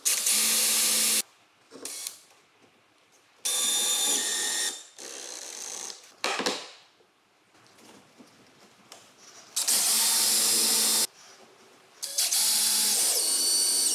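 Cordless drill-driver running in four short bursts with a steady whine, pre-drilling and driving screws into the side of a door frame.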